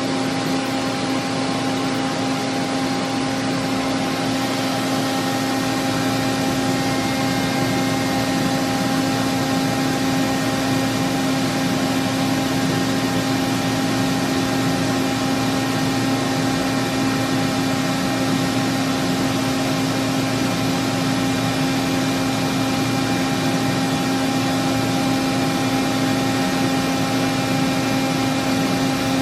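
Toshiba BTD-200QF CNC horizontal boring mill running under power while its rotary table turns: a steady machine hum with one strong low tone and fainter higher tones over a hiss.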